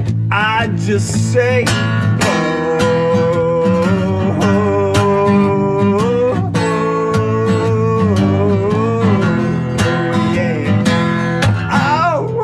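Steel-string acoustic guitar strummed steadily while a man sings over it, mostly long held notes that waver slightly, with short gliding notes near the start and near the end.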